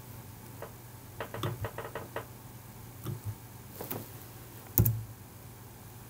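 Computer keyboard and mouse clicks as a value is typed into a CAD program: a quick run of about six key taps, then a few scattered clicks with one louder click near the end, over a faint steady low hum.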